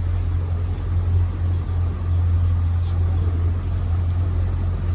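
Tour boat's motor running steadily at low canal speed: a constant low hum, with water rushing past the hull.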